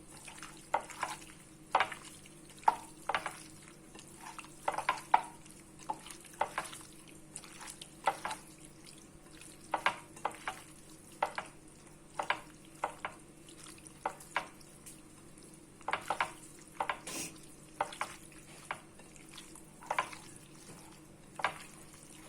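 Boneless chicken pieces being mixed with turmeric, pepper and salt in a bowl: irregular short scrapes and taps, one or two a second.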